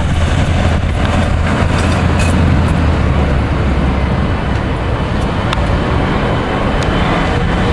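Airbus A321's jet engines during its landing rollout on the runway: a steady, loud rush with a deep rumble underneath.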